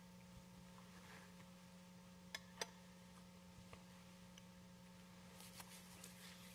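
Near-silent room with a steady low hum, broken by two light clinks about two and a half seconds in, a quarter second apart, from metal altar vessels such as the chalice being handled on the altar, and a few fainter taps near the end.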